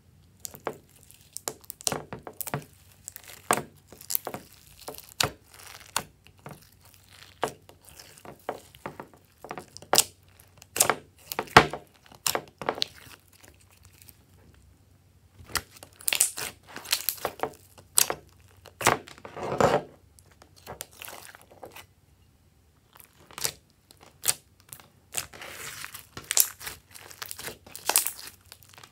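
Hands kneading, squeezing and stretching thick gold slime loaded with glitter and sequins: irregular sticky clicks and pops, with several stretches of denser crackling.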